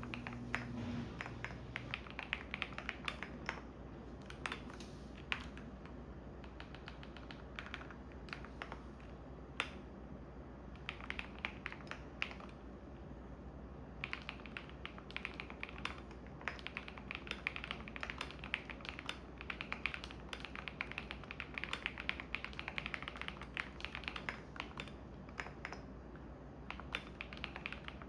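Typing on a computer keyboard: runs of quick key clicks with a few short pauses, over the steady low hum of a washing machine running.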